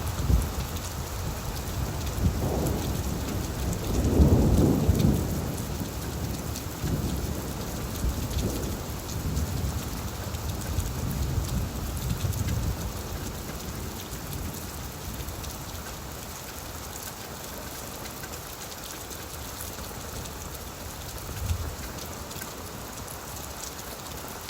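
Steady rain falling on leaves, with a low roll of thunder that builds about two seconds in, is loudest around four to five seconds in, and rumbles away by the middle; a short fainter rumble comes near the end.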